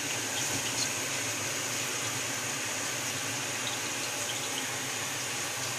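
Steaks frying in a pan, a steady sizzle with a few small pops.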